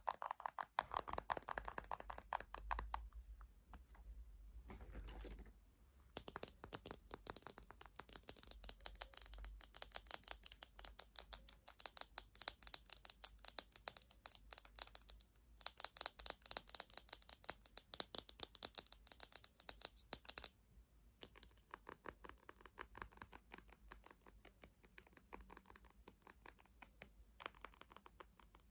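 Fast fingernail tapping and scratching on cosmetic containers: rapid clicking runs broken by a few short pauses.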